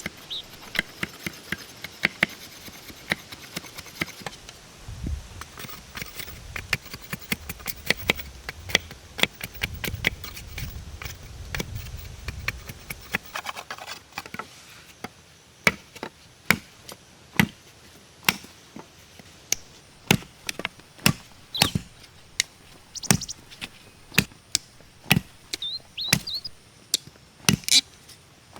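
Repeated sharp blows of a tool striking wood, like chopping or hammering, coming about one or two a second in the second half.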